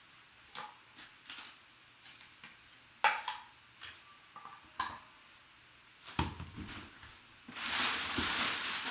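Cardboard box and crumpled packing paper being handled: scattered taps and rustles with a sharp tap about three seconds in, then a louder, continuous paper crinkling from about six seconds in.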